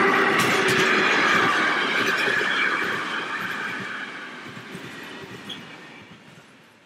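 Freight train running on the rails, fading away steadily from about a second and a half in until it is faint by the end.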